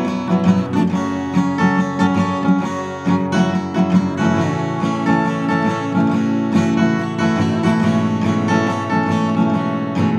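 Acoustic guitar strummed steadily, chords ringing with no voice over them.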